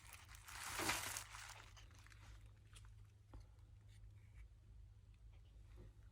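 Packaging being torn or crinkled open: one loud rustling tear lasting about a second near the start, then faint small rustles and ticks as the package is handled, over a steady low hum.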